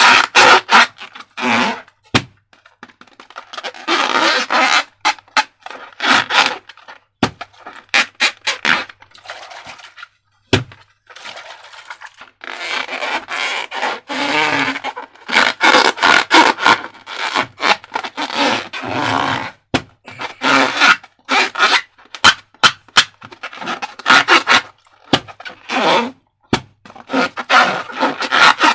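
Slime being worked by hand with transparent balloons: sticky squishing and scraping with crackles, broken by many sharp clicks.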